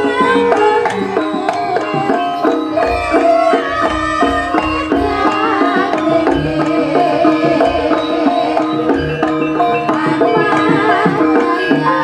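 Live Javanese jaranan dance music: hand drums beating under pitched melodic instruments, playing without pause.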